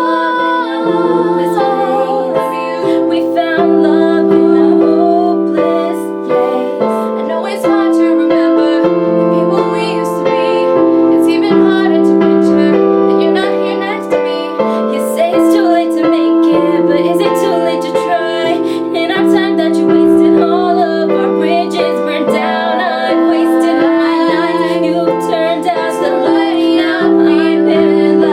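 Female voice singing a pop-song cover over steady piano chords.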